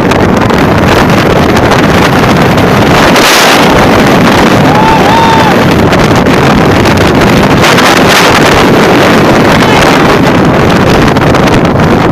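Strong wind blasting straight onto the microphone: loud, constant buffeting noise that swells in gusts a few times.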